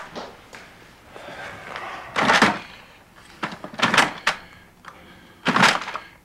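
Plastic cassette tape cases clacking and knocking against each other and a wooden cabinet as they are rummaged through by hand: several sharp clatters, the loudest about two, four and five and a half seconds in, with softer handling noise between.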